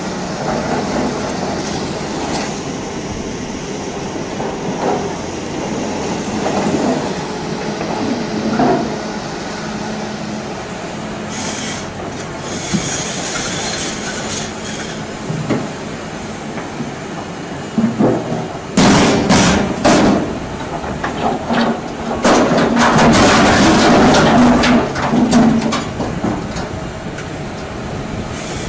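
Doosan crawler excavator working in a quarry: a steady diesel engine drone with scattered clanks and knocks. About two-thirds of the way in come sharp knocks and then several seconds of loud grinding and clanking as the steel bucket scrapes and shoves a huge stone block in a dump truck bed.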